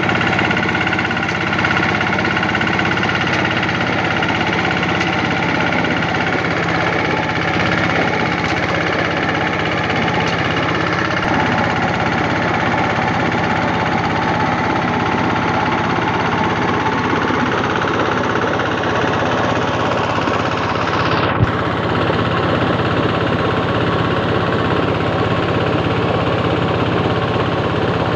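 Two-wheel hand tractor's single-cylinder diesel engine running steadily. A short sharp click about three-quarters of the way through.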